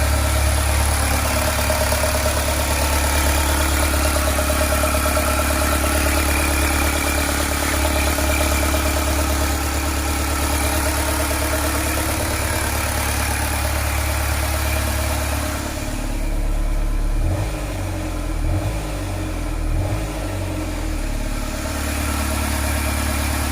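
A van engine idling steadily on its first run after being refitted. About two-thirds of the way through, the idle drops and turns uneven for a few seconds, then settles again.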